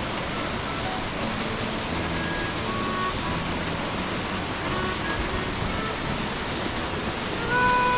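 Rushing water of a mountain stream, a steady, even noise, with a short whistled note near the end.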